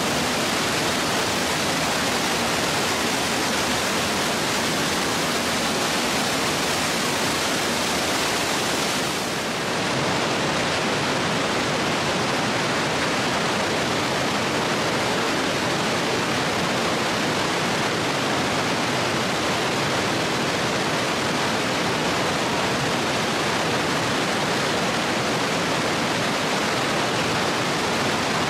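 Steady, loud rush of falling or fast-flowing water, dipping briefly about nine seconds in.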